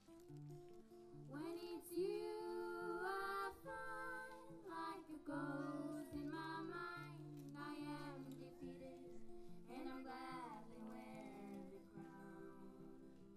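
A female voice singing a melody over a steady instrumental accompaniment of repeated notes; the voice comes in about a second in and drops out near the end, leaving the accompaniment.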